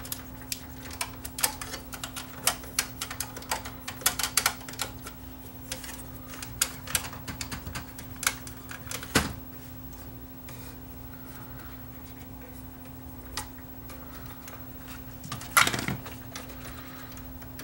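A Sony SLV701 VCR's P2 and P3 tape guides are scrubbed clean of debris while the mechanism turns, giving irregular sharp clicks and scrapes. The clicks are dense for about the first nine seconds and sparse after, with one louder scrape near the end, over a steady low hum.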